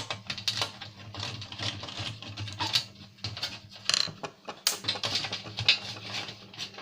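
Irregular clicks, knocks and light rattles of plastic and metal DVD player parts being handled and taken apart by hand.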